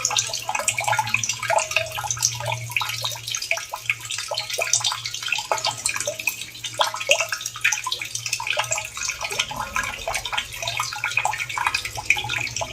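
Water trickling and splashing, with many quick drips and plinks over a steady low hum.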